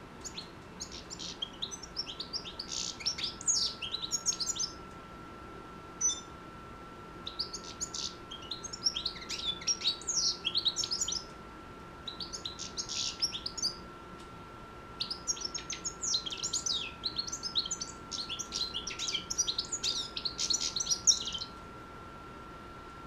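Six-month-old European goldfinch singing in a cage: rapid, jumbled twittering phrases of high chirps and trills, four or five bursts with short pauses between them.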